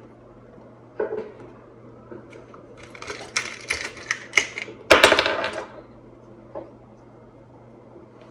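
Old transistor radio under test giving irregular clicks and crackles: a single click about a second in, a rapid flurry of clicks from about three seconds, and a louder crackling burst about five seconds in, as the long-idle set begins to come back to life.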